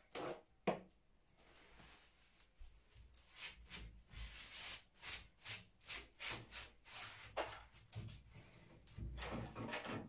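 Rustling and scraping from handling walnut shells while picking the kernels out by hand, with a plastic bag crinkling close by. There are two short sounds at the start, then a run of short scrapes from a few seconds in.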